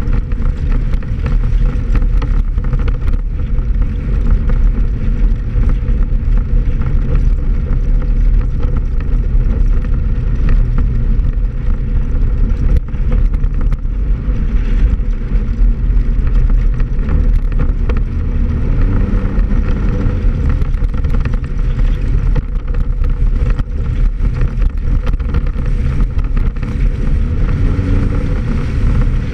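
Off-road vehicle's engine running steadily while driving over a rough dirt track, with continual knocks and rattles from the bumpy ground.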